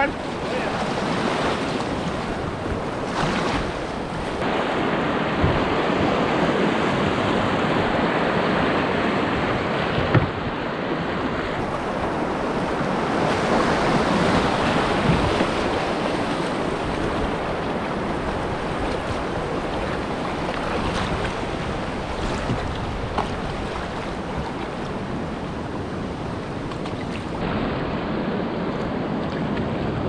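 Steady rushing of river whitewater, with a couple of brief knocks.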